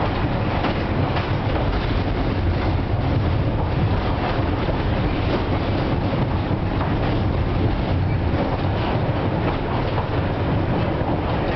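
FVV CSM-4 articulated tram heard from inside the passenger car while running: steady rumbling running noise from the wheels on the rails, with light irregular clicks.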